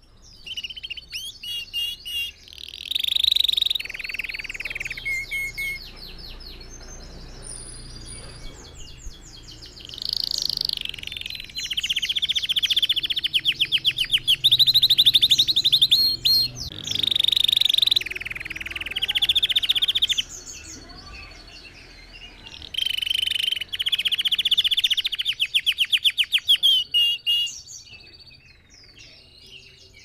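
Red factor canary singing: phrases of rapid, fast-repeated trills and rolls, coming in loud stretches of a few seconds with short quieter pauses between.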